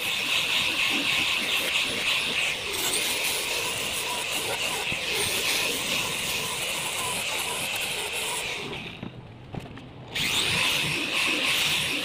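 Electric angle grinder fitted with a sanding disc, its motor whining steadily as the disc sands a pallet-wood plank. A little over eight seconds in the sound drops away for about a second and a half, then the grinder comes back.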